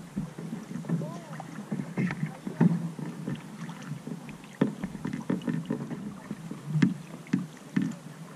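Water lapping and splashing against a canoe's hull as it is paddled, heard close to the waterline, with irregular sharper splashes from paddle strokes.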